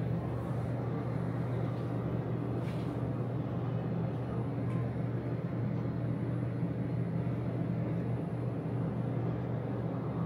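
Hyundai passenger elevator cab travelling upward, a steady low hum and rumble of the car running in the shaft at an even level.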